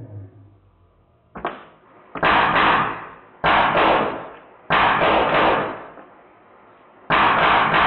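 Drozd Blackbird BB machine gun, fitted with a Sergey board and fed from a high-pressure air tank, firing on full auto. A single shot comes about one and a half seconds in, then four rapid bursts of about a second each with short pauses between, as BBs strike and scatter the target.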